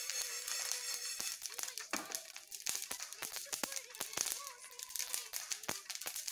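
Mustard seeds popping and crackling as they roast in a hot pan: many small, irregular pops, a sign the seeds are done.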